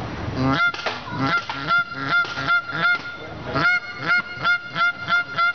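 Canada geese honking in a quick, steady run of about four honks a second.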